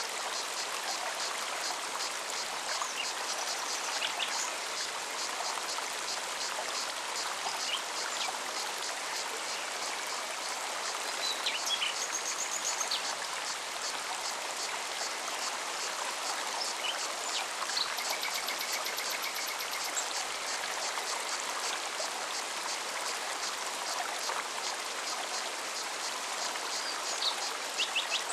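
Mountain forest stream running steadily over rocks, with scattered short bird chirps and the fast, even pulsing chatter of cicadas high above the water.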